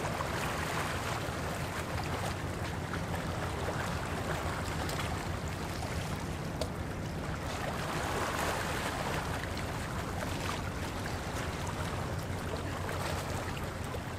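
Small waves washing and lapping against shoreline rocks, swelling twice, over a steady low rumble.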